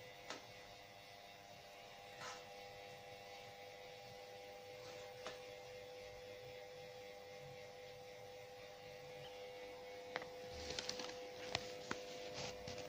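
A quiet steady hum holding one pitch, with a few faint clicks and taps, most of them bunched together near the end.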